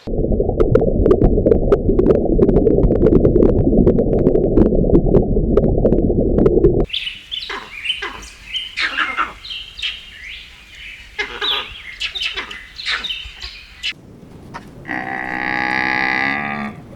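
A run of farm animal sounds: about seven seconds of dense low rumbling noise that stops abruptly, then a string of short, high chirping calls, then one long cow moo lasting about two seconds near the end.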